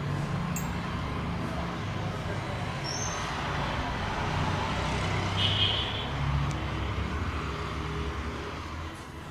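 Steady low rumble of road traffic, with engines running, and a brief high tone about five and a half seconds in.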